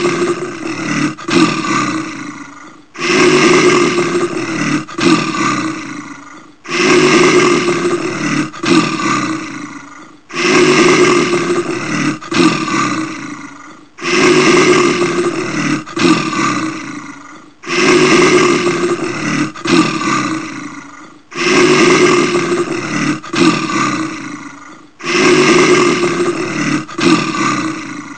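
Brown bear roaring, the same roar repeated over and over, about once every three to four seconds. Each roar starts loud, breaks off briefly about a second in, then carries on and fades away.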